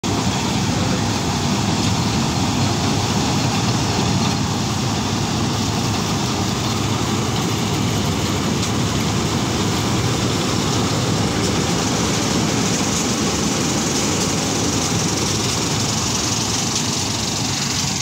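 New Holland 8070 combine harvester working a rice crop: its engine and threshing machinery give a loud, steady, dense running noise.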